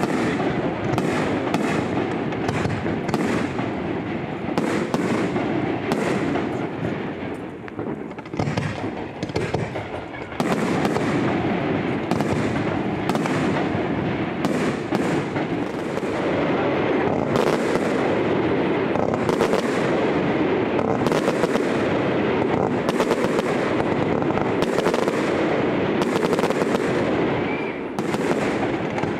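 Fireworks display: aerial shells bursting in a rapid series of bangs, one or two a second, over a continuous dense crackle. It thins briefly about a third of the way in, then builds again.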